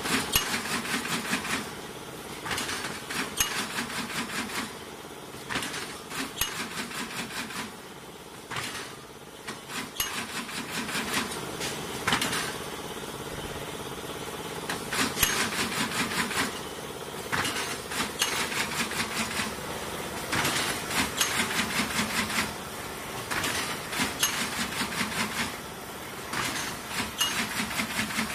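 Twin-head semi-automatic carton stitcher running, its stitching heads clacking rapidly in runs of a second or two as corrugated cardboard boxes are stitched, with short pauses between runs. A steady motor hum lies under it throughout.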